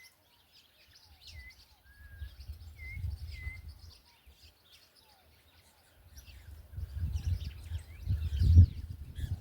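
Birds chirping with a few short whistles, over a low rumbling noise that comes in about a second in and again at about six seconds, loudest near the end.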